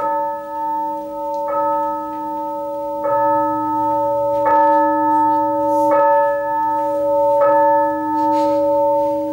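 A bell chime struck six times, evenly about a second and a half apart, each stroke ringing on into the next: a clock striking six.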